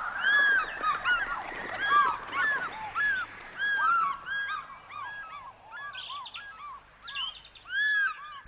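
A flock of birds calling: many short, arched calls overlapping, dense at first and thinning out after about four seconds.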